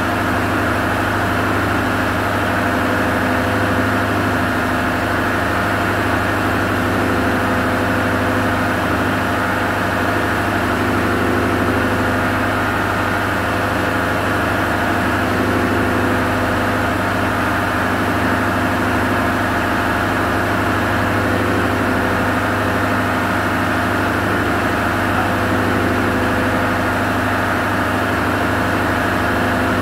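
Steady drone of running diesel machinery in a ship's engine room: a constant low hum with several steady tones above it, unchanging throughout.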